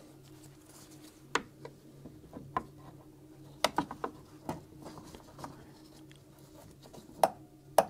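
Scattered small clicks and light knocks of locking forceps being fitted and ratcheted shut on rubber coolant hoses, to clamp them off before the coolant tank comes out. A faint steady hum runs underneath.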